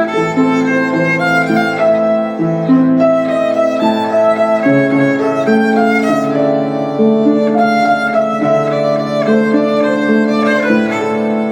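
Violin playing an Argentine tango melody over lower sustained accompaniment notes, a continuous run of held and changing notes.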